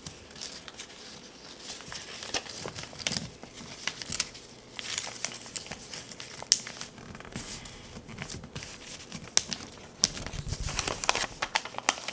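A small sheet of paper being folded and creased by hand into a paper airplane, crinkling with irregular sharp crackles as the folds are pressed down.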